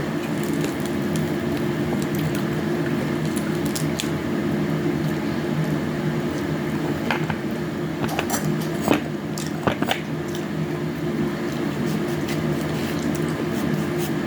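Close-miked eating sounds: wet chewing and squishing of fruit, with scattered short clicks of utensils or dishes, several of them about halfway through, over a steady low hum.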